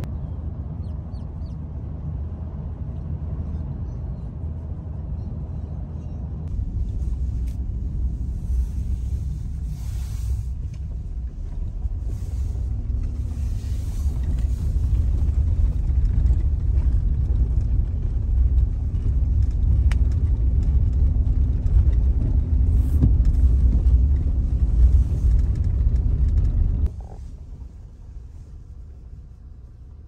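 Steady low road and engine rumble heard from inside a moving vehicle's cabin. It grows louder through the middle and drops away abruptly near the end.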